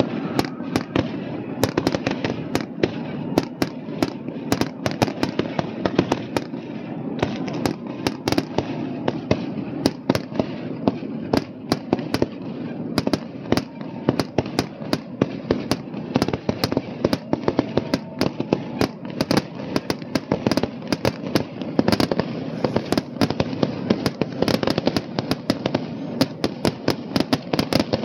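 Fireworks show: rapid, overlapping bangs and crackles, several a second, over a continuous rumble of explosions.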